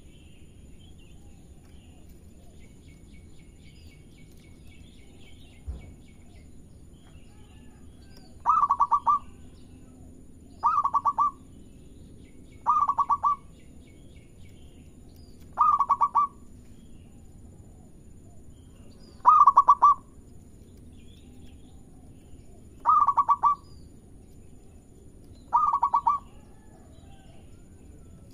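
Zebra dove (perkutut) cooing: seven short, rapid stuttering coos, spaced two to four seconds apart and starting about eight seconds in. Faint chirps of other birds come in the first few seconds.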